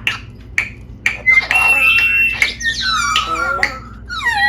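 Pet parrot vocalizing: a few sharp clicks, then a long steady whistle, then harsh chattering calls that end in a falling squawk.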